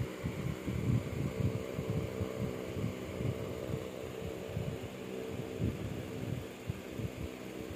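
Siamese cat purring steadily while having its chin scratched: a low, even rumble that rises and falls with its breathing, the purr of a contented cat.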